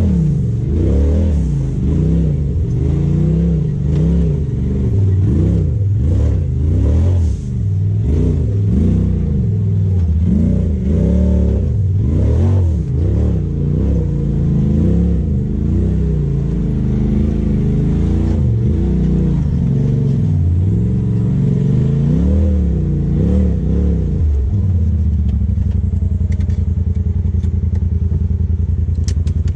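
Polaris RZR side-by-side's engine heard from the cab, revving up and down over and over as the throttle is worked, then settling to a steady idle about 24 seconds in.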